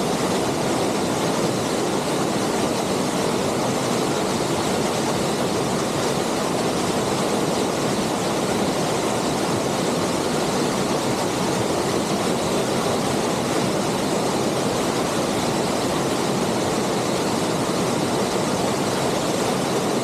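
Waterfall pouring steadily: an unbroken rush of falling water that does not change.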